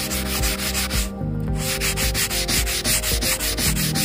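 Hand sanding of a dry first coat of polywax sealer on wood with a sanding block: quick, rhythmic back-and-forth rubbing strokes, with a short break a little past a second in.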